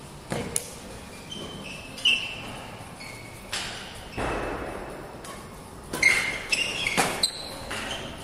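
A badminton rally in an echoing sports hall: several sharp racket strikes on the shuttlecock, with short high squeaks of court shoes on the floor between them.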